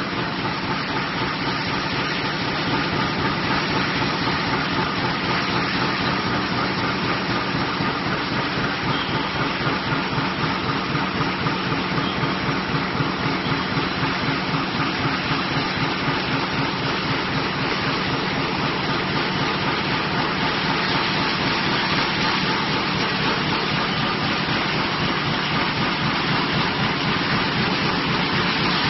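Steel coil slitting line running: the uncoiled steel strip is driven through rollers and rotary slitter knives, giving a steady, dense mechanical running noise with a fine fast pulsing.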